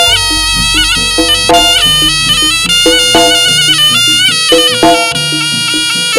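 Jaranan accompaniment music: a shrill double-reed slompret plays a winding, stepping melody over regular percussion strokes.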